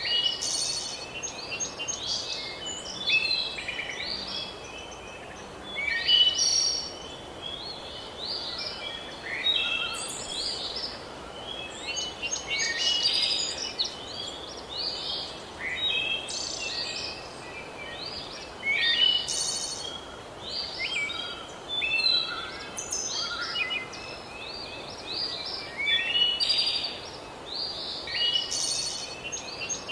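A chorus of songbirds chirping and trilling, many short calls overlapping without a break, over a faint steady background hiss.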